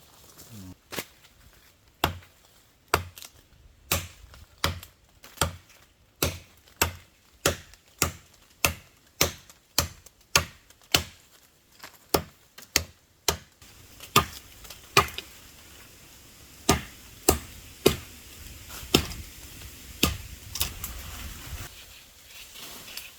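A long series of sharp chopping strikes of a tool into wood, about one or two a second, with a short break about two thirds of the way through.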